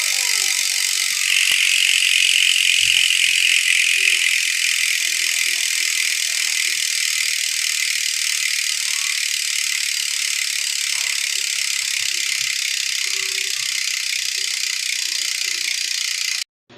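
Specialized bicycle hub freewheeling: its pawls ratchet in a fast, continuous high-pitched buzz of clicks as the wheel spins free. It is louder for a few seconds near the start and cuts off abruptly near the end.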